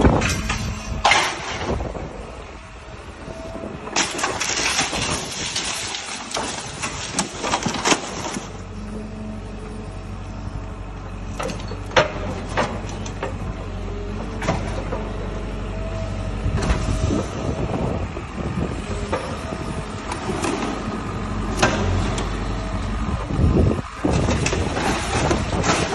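Demolition excavator's grab tearing into a Plaxton President double-decker bus body, with crunching, tearing metal and scattered loud bangs. A dense spell of crashing comes early, and from about a third of the way in the excavator's engine runs steadily underneath.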